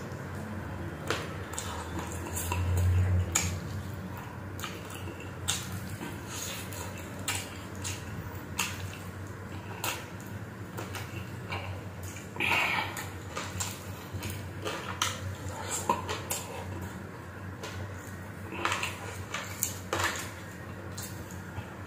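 Close-up mukbang eating sounds of a person eating chicken adobo by hand: wet chewing, lip smacking and finger sucking, heard as many irregular sharp clicks. A brief low hum about three seconds in is the loudest moment.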